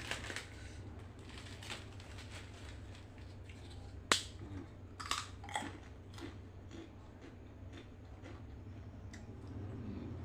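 Eating sounds: scattered clicks of a spoon against a plate, the sharpest about four seconds in and a few more just after five seconds, over a steady low hum.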